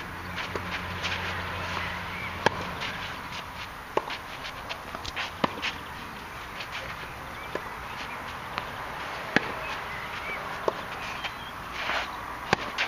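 Tennis rally on a clay court: sharp racket-on-ball hits roughly every one and a half to two seconds, with players' shoes scuffing and stepping on the clay between them.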